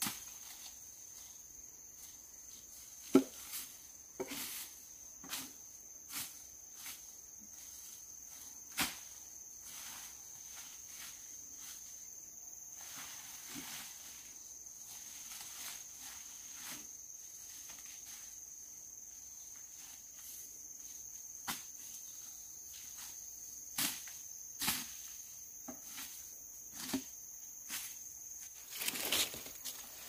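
Insects droning steadily in one high tone, with about a dozen scattered, irregular knocks and taps over it; the sharpest comes about three seconds in, and a small cluster falls near the end.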